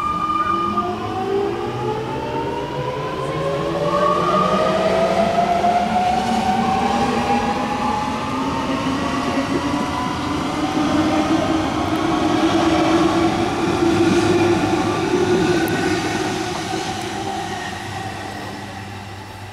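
Millennium electric multiple-unit train (M22+M33) pulling away and accelerating: its traction motors give a whine of several tones rising steadily in pitch over the rumble of wheels on rail. The sound fades near the end as the train draws off.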